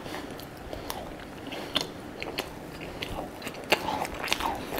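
A person chewing a mouthful of croissant, with soft mouth sounds and a few sharp crunches from the somewhat hard outer pastry.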